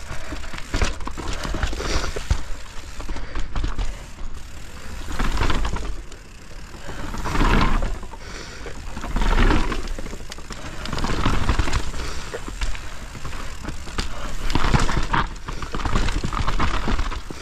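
Mountain bike descending a snow-covered trail: tyres rolling over snow and the bike knocking and rattling over bumps. A low rumble runs underneath, and the noise swells loud several times.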